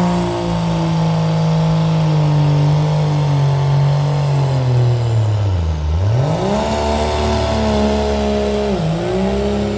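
Diesel pickup engine at full throttle dragging a pulling sled. Its pitch sags slowly as the load builds, drops sharply about six seconds in, then revs back up and holds high with one brief dip near the end.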